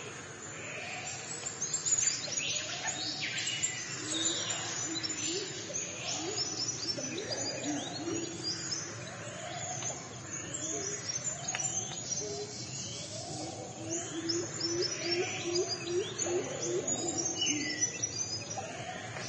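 Birds calling: a busy run of short high chirps and sweeping notes, with short, low, rising cooing notes repeated over and over, several in quick succession near the end.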